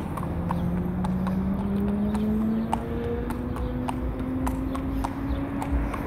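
Shod horse's hooves clip-clopping at a walk on a tarmac road, about two strikes a second, over a steady low hum that slowly rises in pitch.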